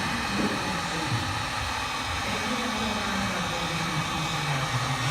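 Heat gun running with a steady blowing hiss, heating the dented plastic bumper cover so the dent can be popped out.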